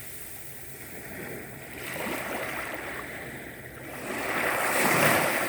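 Sea waves washing onto the shore, swelling twice: a smaller surge about two seconds in and a louder one near the end.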